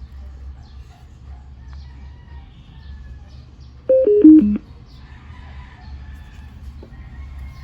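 Yoobao M1 Bluetooth speaker sounding a short electronic prompt chime about four seconds in: four quick beeps stepping down in pitch. A low steady hum sits underneath throughout.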